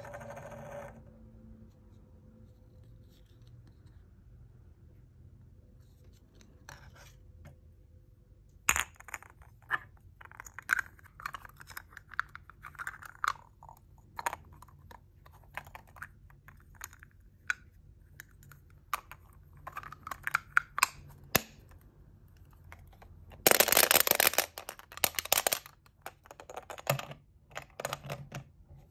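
Hands handling a small plastic toy Poké Ball capsule, giving irregular clicks, taps and light rustles. It starts after several quiet seconds, and a louder stretch of scraping or rustling lasting about two seconds comes late on.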